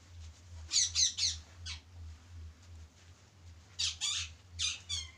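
Shrill, high-pitched animal calls in quick groups: three or four around one second in, then two pairs near the end.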